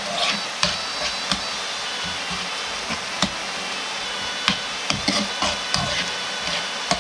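A metal spoon stirring thick curry in a pan, with irregular clicks and scrapes as it knocks against the pan, over a steady rushing background noise.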